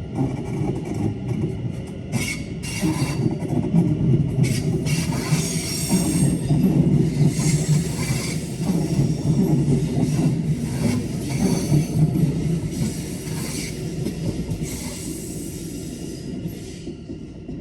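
A train moving through the station: a heavy low rumble that builds over the first few seconds and fades near the end, with wheels squealing and clacking over the rails.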